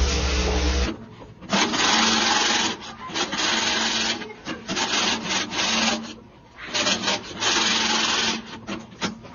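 Music cuts off about a second in. Then come a series of rasping strokes, each about a second long with short pauses between, as a zipper slider is run along a bag's zipper, followed by a few quicker short rasps near the end.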